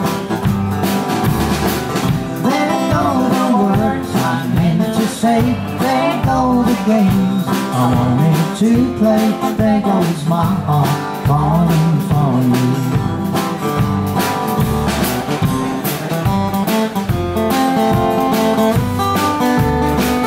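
Live country band playing, with a steady bass line under a lead line that bends in pitch through the middle of the passage.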